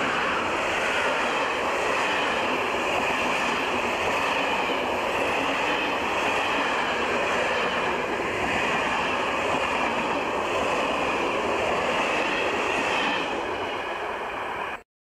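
Passenger coaches of a long train rolling past on the track: a steady rush of wheels on rails that eases slightly near the end and then cuts off suddenly.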